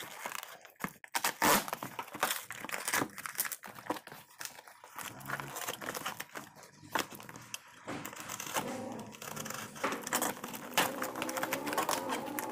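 Corrugated cardboard shipping box being torn open by hand: irregular ripping, crinkling and scraping of cardboard and packing tape.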